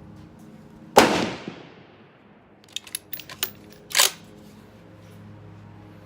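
One shot from a Blaser Tactical 2 straight-pull rifle in 5.56, with a short echoing tail. About two seconds later comes a quick run of metallic clicks and a sharp clack as the straight-pull bolt is cycled.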